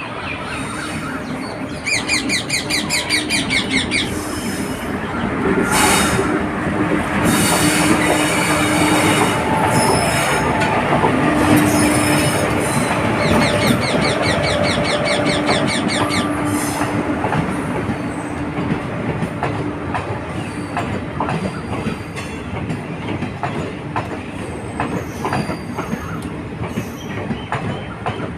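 Train running along the track: continuous wheel and carriage rumble with high metallic squeals, two short spells of rapid high rattling, loudest in the middle and easing off toward the end.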